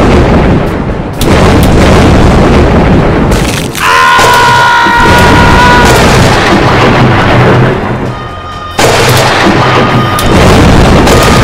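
Loud thunder-like crashes and rumbling of lightning strikes, with sudden new cracks about a second in, near four seconds and near nine seconds, each followed by a long rumble.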